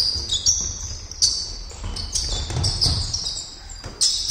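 Basketball shoes squeaking sharply on the hall's wooden floor, with a ball bouncing on the dribble.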